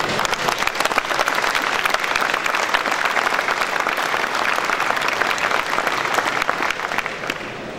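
Audience applauding: a dense, steady clatter of many people clapping that thins out near the end.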